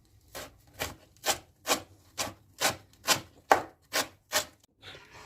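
Kitchen knife cutting on a wooden cutting board with a rhythmic slicing motion: about ten scraping strokes at roughly two a second, stopping about four and a half seconds in.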